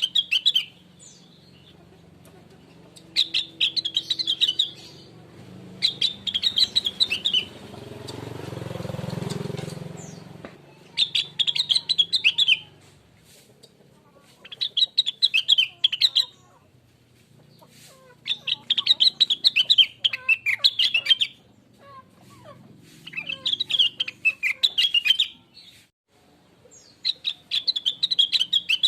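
Blue-winged leafbird (cucak rengganis / cucak wilis) singing in repeated bursts of rapid, high chirping, each phrase about a second and a half long and coming every three to four seconds. A broad rush of noise swells and fades about eight to ten seconds in.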